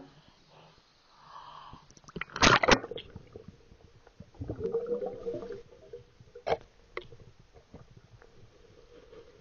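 Muffled gurgling and sloshing of water around a camera held at the surface. There is a louder rush about two and a half seconds in and two sharp clicks near seven seconds.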